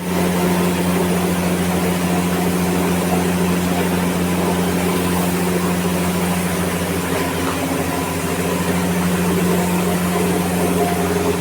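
A machine running steadily: a constant low motor hum with an even hiss over it, unchanging throughout.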